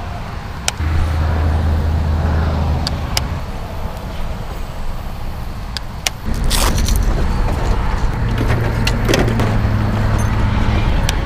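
Wind rumbling on the microphone in an aluminum jon boat. Over it come sharp clicks from a baitcasting reel and rod being handled, and a clatter of gear near the end as rods in the boat are reached for.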